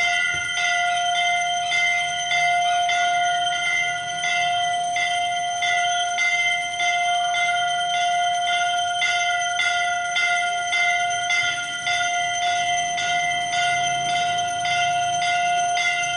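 Temple bell rung steadily during aarti, struck about twice a second, its tone ringing on between strikes.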